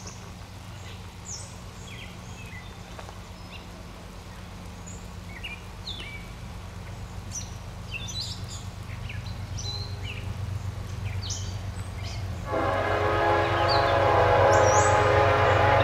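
Approaching CSX diesel freight locomotive: a low, steady engine drone that slowly grows louder, with birds chirping. About three-quarters of the way through, its multi-chime air horn starts a long blast, which is the loudest sound.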